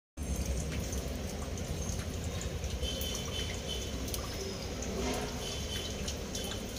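Steady outdoor background noise with a few faint, short high-pitched chirps and light clicks.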